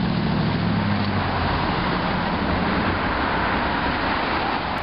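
Street traffic: a steady wash of road noise from cars passing at an intersection, with a low engine hum that fades about a second in.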